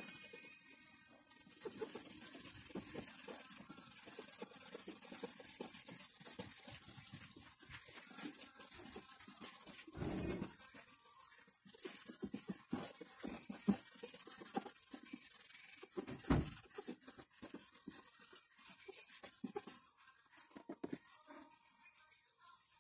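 Pencil lead scratching and rubbing on drawing paper in many short sketching strokes, with two louder dull bumps about ten and sixteen seconds in.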